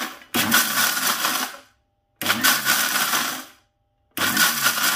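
1 HP electric mixer grinder pulsed on and off, dry-grinding roasted nuts and spices: three short runs of a little over a second each with brief pauses between, after the tail of an earlier run. The on-off pulsing keeps the cashews and almonds from releasing their oil.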